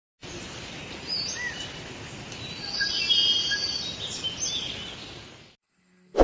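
Outdoor ambience with several birds chirping briefly over a steady background hiss. It fades out about five seconds in, and a sharp bell-like strike comes right at the end.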